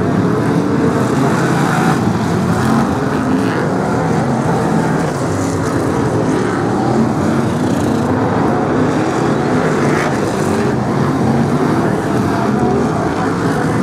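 A pack of BriSCA F1 stock cars racing, their V8 engines running hard in a continuous loud, overlapping din, engine notes rising and falling as the cars pass and lift for the bends.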